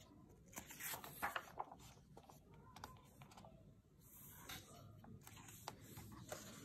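Paper pages of a large softcover workbook being turned by hand: soft rustling and flapping of the sheets, loudest about a second in, with another page turning near the end.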